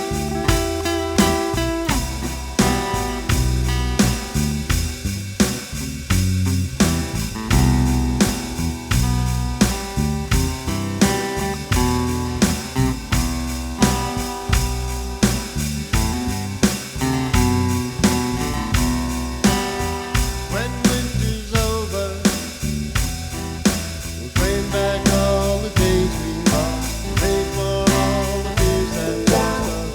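A small band playing a song, with guitar and bass guitar over a steady beat.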